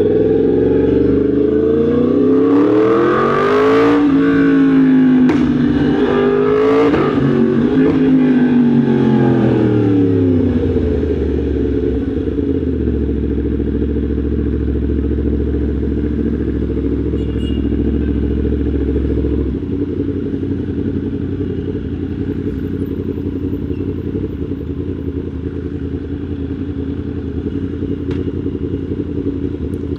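Yamaha MT-10 SP's crossplane inline-four engine, with revs rising and falling several times over the first ten seconds, then running at steady revs for the rest.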